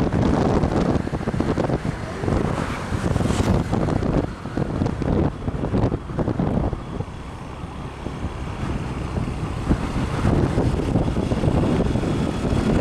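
Wind buffeting the microphone on a moving vehicle, with engine and road noise rumbling underneath; it eases briefly about two-thirds of the way through.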